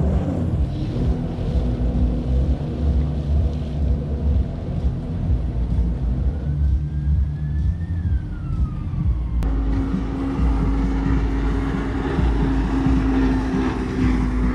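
Jet ski engines running close to the shore: a steady motor drone with one rise and fall in pitch in the middle, over a heavy low rumble. The sound changes abruptly about two-thirds of the way through, when a steadier engine tone comes in.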